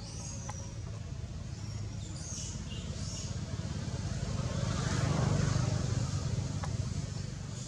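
A motor vehicle passing: a low rumble that swells to its loudest about five to six seconds in and then eases off. Faint high chirps come in the first few seconds.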